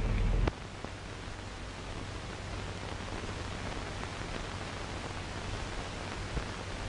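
Steady hiss and static of an early sound-film soundtrack. A low rumble under it stops abruptly with a click about half a second in.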